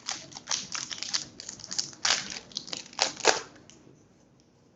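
Foil booster pack wrapper being handled, crinkling and crackling for about three and a half seconds, loudest near the end, before it goes quiet.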